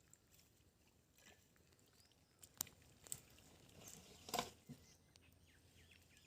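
Near silence, broken by a few scattered faint clicks and a slightly louder knock about four seconds in.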